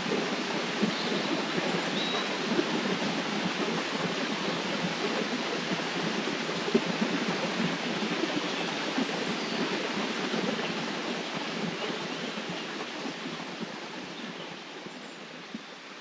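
River water flowing and splashing in a steady rush, growing quieter over the last few seconds.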